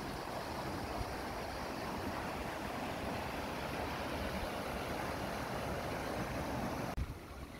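Muddy floodwater rushing steadily along a rain-swollen drainage ditch. The rushing drops away abruptly near the end.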